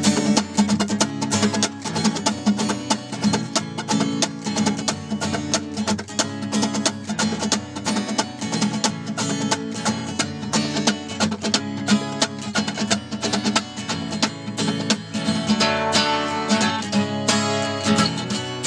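Acoustic guitar played in a quick, steady rhythm of picked and strummed strings.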